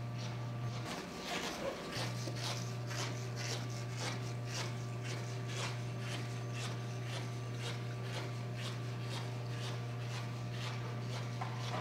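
Irregular footsteps and light scuffs on a hard floor over a steady low hum, which drops away briefly about a second in.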